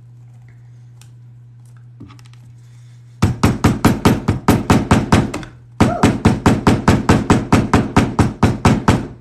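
Fast hammering on leather, about five blows a second, beginning about three seconds in and running in two bursts with a brief pause between, as a fold is beaten flat.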